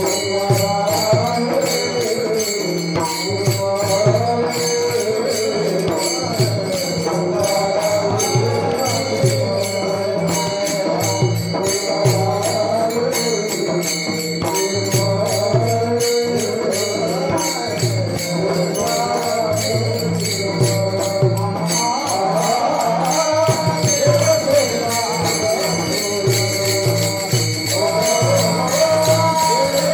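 Devotional kirtan bhajan music with a wavering melodic line over a pulsing drum. Small hand cymbals (taal) clink in a continuous, busy rhythm.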